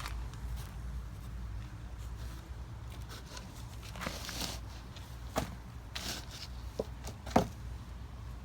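Hands sifting through dumped container soil for potatoes: scattered rustles and small knocks, the sharpest about seven seconds in, over a steady low background rumble.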